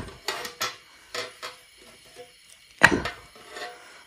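Metal cookware clanking: a utensil knocking against a pan about six times, with a faint ringing after some strokes and the loudest knock about three seconds in.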